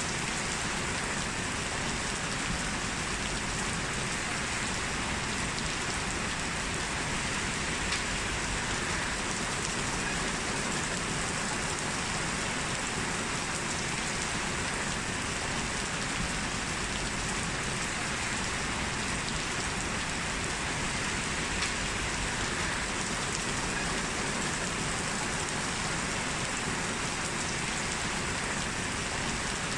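Heavy rain falling steadily: an even, unbroken hiss of rain on hard surfaces.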